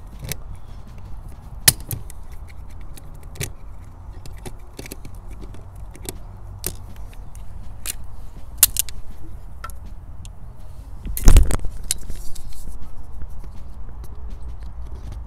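Hand work at a rusted outdoor electrical box: scattered sharp clicks and snips of wire strippers cutting the old cables, and metal and plastic fittings being handled, with a louder clunk about eleven seconds in. A steady low rumble runs underneath.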